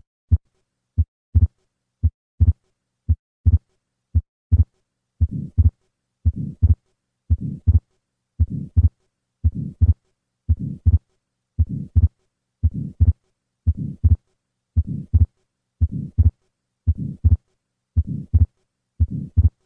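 Heart sounds of an atrial septal defect, beating about once a second in a steady lub-dub. From about five seconds in, a soft systolic flow murmur across the pulmonic valve follows the first sound, with a split second sound (A2–P2). Together these are the key findings of the defect.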